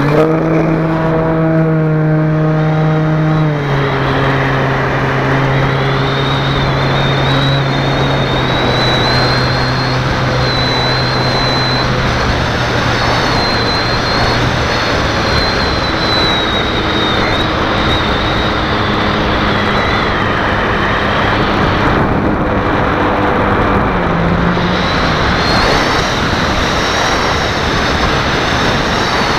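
RC model Cessna 350's motor and propeller running hard, heard from a camera on the wing: a steady high whine over heavy propeller and wind rush. The lower engine tones step down in pitch a few seconds in.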